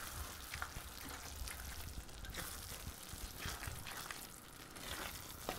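Risotto simmering faintly in an enamelled cast-iron pan while a spatula stirs through the rice, with a few soft ticks.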